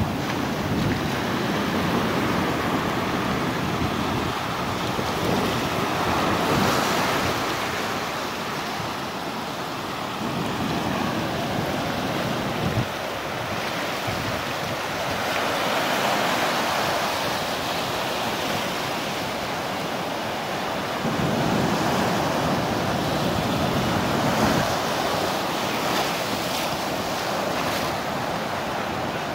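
Ocean surf washing over shoreline rocks close to the microphone: a continuous rushing of foaming water that swells as waves break and falls back in between.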